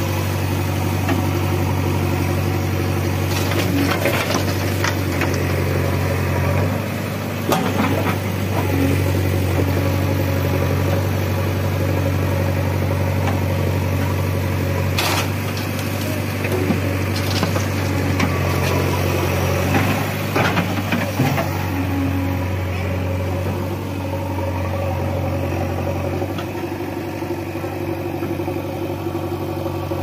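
JCB 3DX backhoe loader's diesel engine running steadily while it works. A few short knocks stand out as the bucket digs and dumps soil into a steel tractor trolley.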